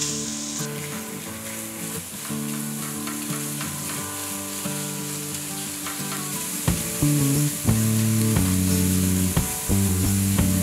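Ground pork frying in a nonstick wok, sizzling as a silicone spatula stirs and breaks it up, with repeated light scrapes and taps of the spatula against the pan. Background music plays along, louder in the second half.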